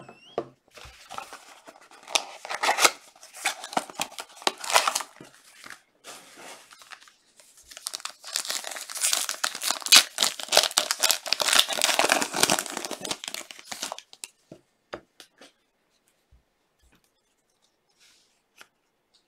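Foil trading-card pack being torn open and crinkled by hand, in two long stretches of crackling, the second louder. Near the end it gives way to a few light clicks as the cards are handled.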